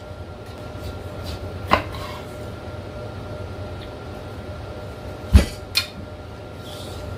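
A knife cutting a whole pineapple and knocking on a wooden cutting board: a light knock, then a heavy thump about five seconds in followed quickly by a lighter knock. A low steady hum runs underneath.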